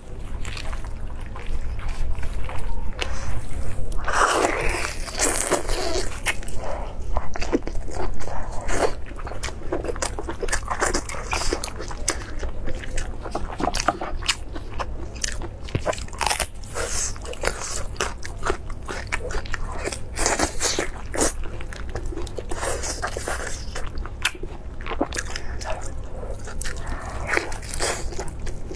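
Close-miked eating sounds from a braised lamb leg: gloved hands tearing the meat off the bone and crunching lettuce leaves, then biting and chewing, in a dense run of irregular clicks and short wet bursts. A steady low hum lies underneath.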